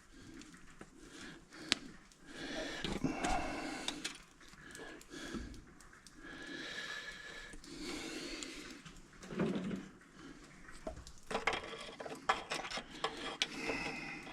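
Hand cutters and pliers working the safety wire off the studs of a tractor engine's main thrust bearing keeper: light metallic clinks, scraping and rubbing of wire and tools against metal, with a few sharp clicks about two seconds in and near the end.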